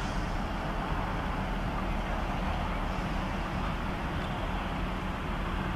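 Steady low rumble of open-air background noise, with faint distant voices.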